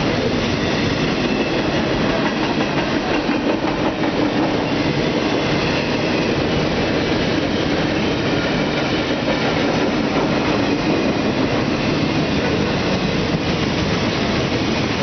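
Cars of a BNSF double-stack container train rolling steadily past: a continuous wheel-on-rail rumble with clickety-clack, mixed with pouring rain.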